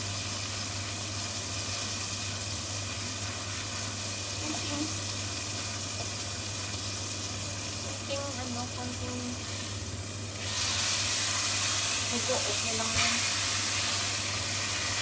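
Chuck eye steak sizzling in hot oil in a deep frying pan, worked with a metal meat fork. The sizzle jumps louder and hisses more about ten seconds in as the steak is turned.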